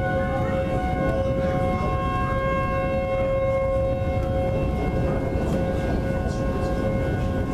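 Outdoor tornado warning sirens sounding a steady wail, holding two pitches at once with no rise or fall, over a constant low background rumble.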